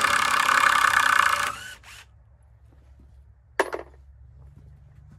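Power drill running at full speed to take screws out of a wooden board. It stops about a second and a half in, with one short burst just after, and a single sharp click follows near the middle.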